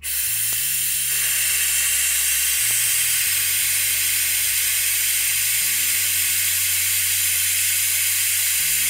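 Air-powered vacuum brake bleeder hissing steadily with its button held down, drawing brake fluid and air out through the opened bleeder screw of a front brake caliper.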